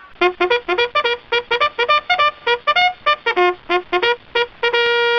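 KDE 3 desktop system sound: a short synthesized brass-like jingle, a quick run of short staccato notes at about five a second, ending on one long held note.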